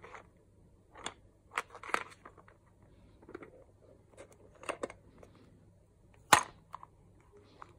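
Small hard plastic case being handled: scattered clicks and taps as it is turned and gripped, with one sharp snap about six seconds in as the thumb pushes the lid catch open.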